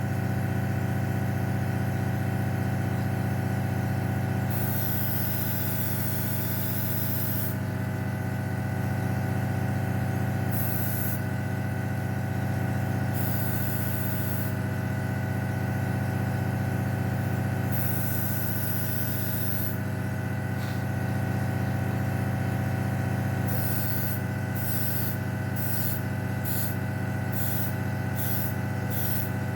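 Airbrush compressor motor running with a steady hum, while the airbrush sprays in hissing bursts: a few passes of one to three seconds, then a quick run of short bursts near the end.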